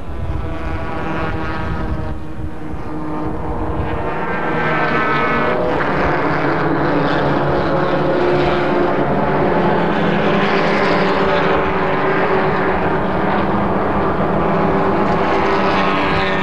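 Race car engines running on a road course, one engine's note rising as it accelerates about four seconds in, after which the sound stays louder and steady.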